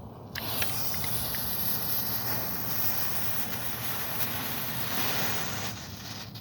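Yellow smoke ball catching about a third of a second in and hissing steadily as it pours out smoke, with a few faint crackles; the hiss eases off near the end.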